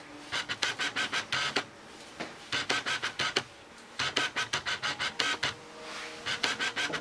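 Stripping knife raking through a terrier's coat in several runs of quick rasping strokes, about six a second, pulling out loose undercoat.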